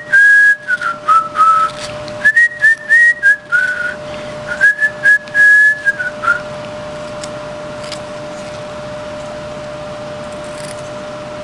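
A person whistling a tune: a string of clear held notes that step and slide downward, in three short phrases over about the first six seconds, then stopping. A steady low hum runs underneath.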